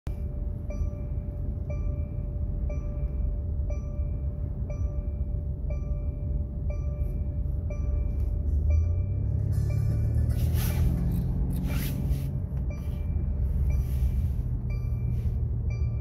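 Mercedes-Benz E-Class W213 seat belt warning chime beeping about once a second, the alert for an unfastened seat belt, over low road and engine rumble inside the moving car. The beeps stop for a few seconds past the middle, then resume.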